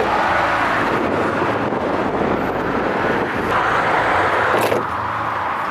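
Steady rush of interstate traffic, with wind on the microphone.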